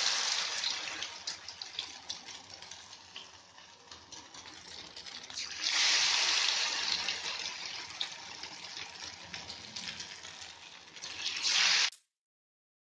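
Batter-coated chicken pinwheel samosas deep-frying in hot oil in a wok: a loud sizzle that swells each time a fresh piece goes into the oil, about six seconds in and again near the end, easing off between. It stops abruptly just before the end.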